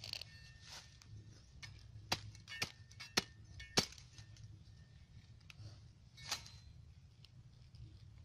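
Sharp knocks: four loud ones about half a second apart in the middle, with a few softer ones before and after.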